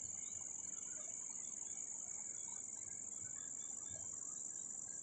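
Insects in a steady high-pitched chorus, one unbroken shrill tone, with faint short chirps scattered through it.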